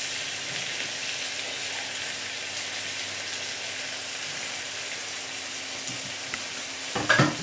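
Stir-fry ingredients with carrot strips just added sizzling steadily in hot oil in a wok. Near the end comes a brief, loud clatter.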